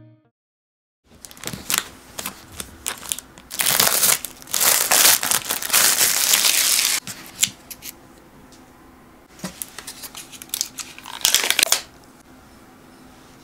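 Plastic and paper packaging of Pucchin Purin pudding cups crinkling and tearing as the three-pack is handled and unwrapped. It is loudest over a few seconds in the middle, with a shorter burst of crinkling near the end.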